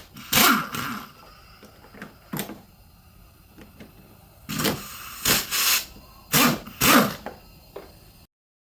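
Impact wrench with a 10 mm socket on an extension, running in several short bursts as it spins out intake manifold bolts. The sound cuts off abruptly near the end.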